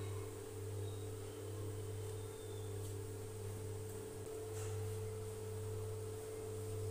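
A steady hum: a low droning tone with a fainter, higher tone held above it, with no change in pitch.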